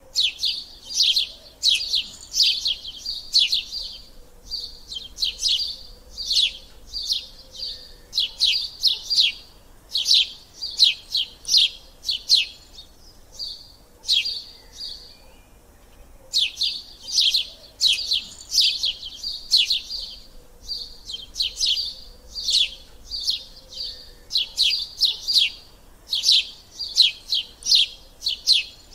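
Small birds chirping: quick runs of short, high chirps, several a second, with a brief pause about halfway through.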